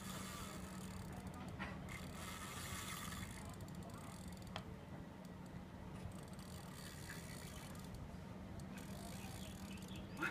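Fishing reel being worked, with a faint mechanical ticking and whirring in two stretches, over a steady low hum.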